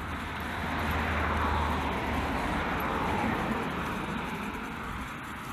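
A car driving past on the road, its tyre and engine noise swelling about a second in and then slowly fading away.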